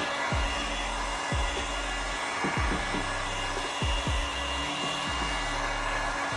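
A handheld heat gun blows steadily over a vinyl decal, post-heating it after installation. Short low thumps that drop in pitch recur irregularly underneath.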